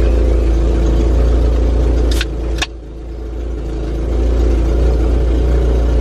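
Jeep engine idling, heard inside the cabin as a steady low rumble. A little over two seconds in come two short sharp noises, after which the sound drops suddenly and builds back up over a second or so.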